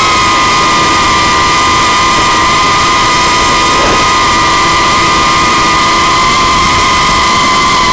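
Onboard audio of a 5-inch FPV quadcopter in fast forward flight: its four brushless motors (Hyperlite 2405, 2522kv, on a 5S battery) and HQ 5x4.3x3 tri-blade props whine at a steady high pitch that dips slightly at the start, over a constant rush of air noise.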